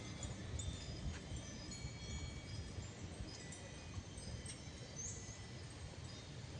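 Small hanging bells or wind chimes tinkling, many light high tones overlapping and ringing on, over a low background rumble. There is a short high chirp about five seconds in.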